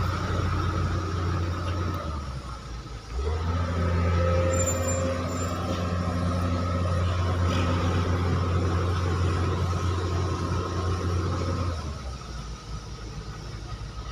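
Heavy diesel engine of earthmoving machinery running. It rises to a louder, steady working pitch about three seconds in and drops back shortly before the end.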